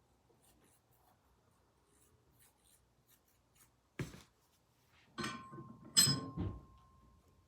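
Metal vise parts being handled on a bench: faint small taps, a sharp knock about four seconds in, then a quick cluster of clanks, the loudest about six seconds in. One metal part keeps ringing with a thin steady tone for over a second afterward.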